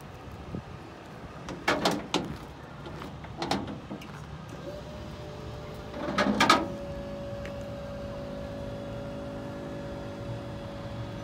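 Truck-trailer hydraulic liftgate: a few loud metal clanks from the steel platform and its chains, then its hydraulic pump motor starts and runs with a steady hum as the platform is raised.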